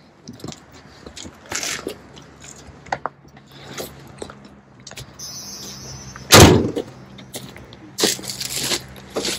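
Cold start of a 1987 Ford F-250's 6.9-litre IDI diesel: the engine catches about four seconds in and settles into a steady idle. A loud door slam about six and a half seconds in is the loudest sound.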